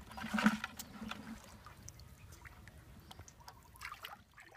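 Faint trickling and dripping of water with scattered small clicks and splashes, as wet fish are handled at the water's edge; a short louder sound about half a second in.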